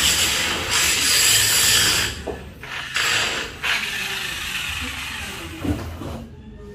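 Angle grinder working on a steel window grill: a loud, rough grinding noise that stops about two seconds in, with one more short burst about a second later.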